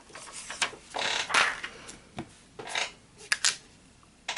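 Clear stamps and an acrylic stamping block handled on a work table: a few brief rustles and several light, sharp plastic clicks.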